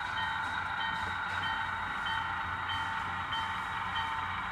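HO-scale model train running: a steady whirr from the locomotive and wheels on the track, with a faint short high note repeating about every two-thirds of a second and a low hum underneath.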